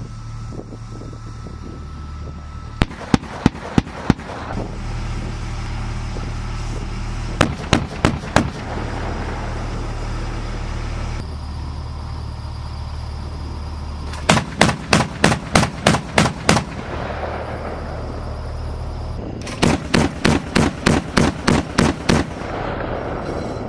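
Automatic gunfire from an M-SHORAD Stryker's turret guns in four bursts, about four shots a second, the later two bursts of around ten rounds each. Under it runs the steady hum of the vehicle's engine.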